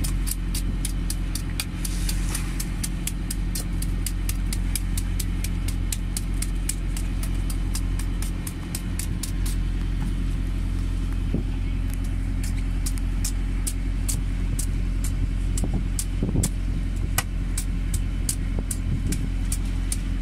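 Knife blade scraping the scales off a great barracuda in quick, even strokes, about three a second, over the steady low drone of an engine running.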